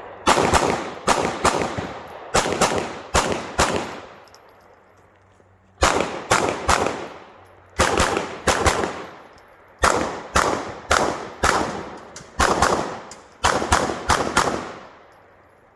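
Pistol fired in rapid strings of about three to five shots, each shot a fraction of a second apart, with pauses of a second or so between strings. Each shot echoes.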